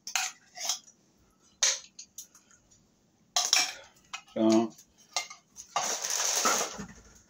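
A metal utensil clinking and scraping against a tin soup can as condensed soup is emptied into a cast iron skillet. There are a few sharp clinks in the first couple of seconds and a longer scrape near the end.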